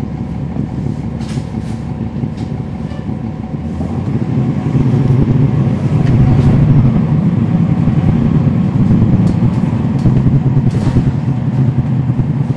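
Cummins ISL9 inline-six diesel engine of a NABI 40-foot transit bus, heard from on board, running steadily and then growing clearly louder about four seconds in as the bus pulls away, holding there. A few brief clicks sound over it.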